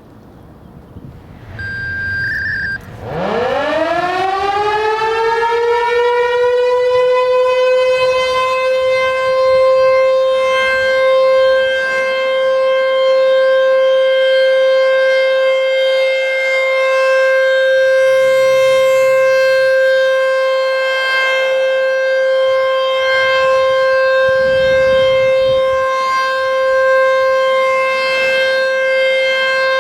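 American Signal T-128 outdoor warning siren starting its test: after a short high beep about two seconds in, it winds up in a rising wail and settles into a steady, loud alert tone.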